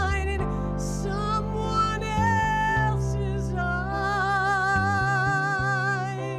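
A woman singing over sustained piano and synthesizer keyboard chords, with a long note held with vibrato in the second half.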